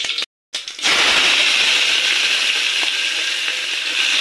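Ingredients frying in hot oil in an aluminium pressure cooker: a loud, steady sizzle with a few faint crackles, cut out briefly about a quarter second in.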